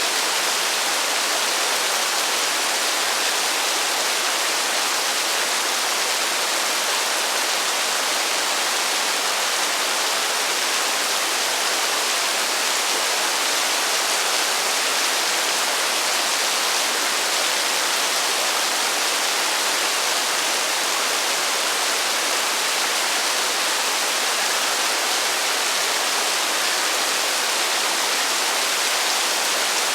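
Heavy rain falling steadily: an even, unbroken hiss with no thunder and no single drops standing out.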